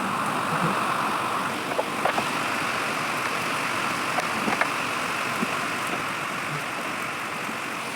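Steady background noise, like a motor running nearby, with a few faint light clicks during work on the cabinet.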